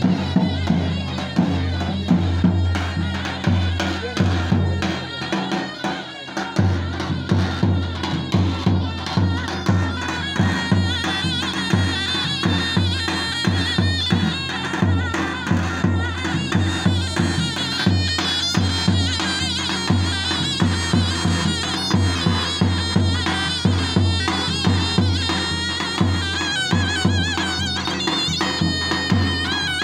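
Davul, a large double-headed bass drum, beaten in a steady folk dance rhythm under a shrill reed wind instrument playing a wavering, ornamented melody. The drum strokes thin out briefly around five seconds in, then pick up again.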